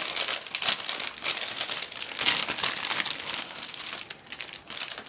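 Thin clear plastic bag holding plastic model-kit sprues crinkling and crackling as it is opened and handled, easing off near the end.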